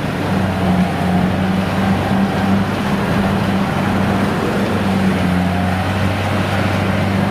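Kubota DC-70G combine harvester's diesel engine running steadily under load as the machine crawls on its tracks through soft, sticky paddy mud.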